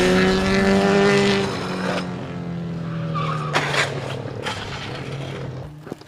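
Sport motorcycle engine whose note sinks as the bike slows, with wind and tyre hiss, then settles to a lower, quieter running note broken by a few sharp clatters.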